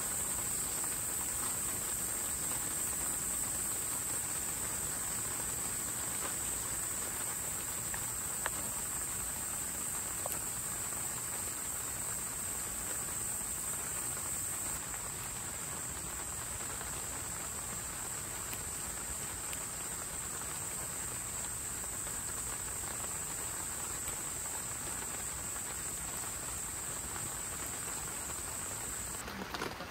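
Insects trilling steadily in one unbroken high-pitched drone over an even background hiss; the drone cuts off abruptly near the end.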